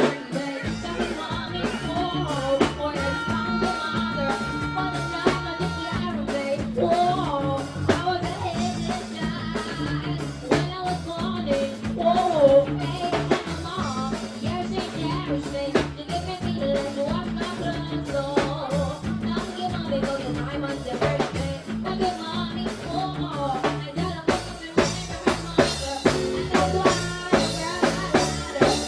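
A dancehall riddim with a steady drum beat and bass line plays through a stage sound system, with a young performer chanting over it into a microphone.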